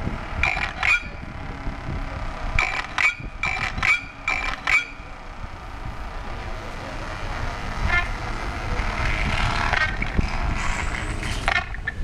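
Electronic car-alarm chirps played through speakers on the cars: two short chirps, then a quick run of about seven more. From about eight seconds in a steadier, hazier alarm-like sound takes over.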